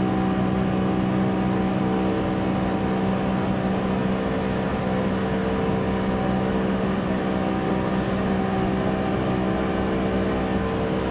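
Speedboat's outboard motor running steadily at speed while towing, a constant drone over a rushing noise of water and wind.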